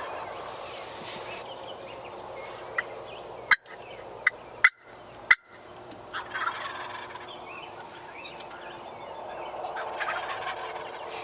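Wild turkey toms gobbling in rattling bursts, with a few sharp, loud clicks or pops about three to five seconds in.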